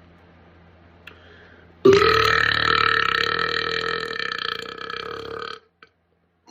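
A man's long, drawn-out burp that starts suddenly about two seconds in, holds one steady pitch for about three and a half seconds, slowly fades, and then stops abruptly.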